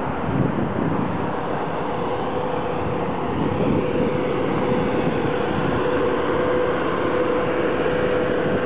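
Steady city traffic noise, with a steady hum joining about three and a half seconds in.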